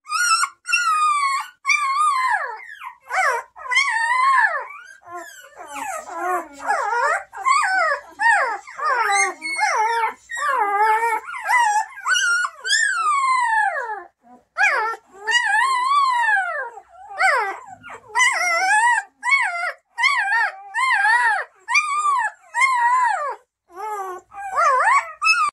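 Newborn Bernese Mountain Dog puppy crying: a long run of high-pitched, wavering squeals and whines, one after another, with a short pause about halfway through.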